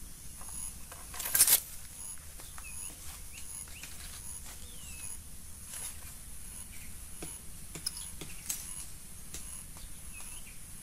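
Outdoor swamp-side ambience with scattered small bird chirps and faint clicks. A short, loud burst of noise comes about a second and a half in.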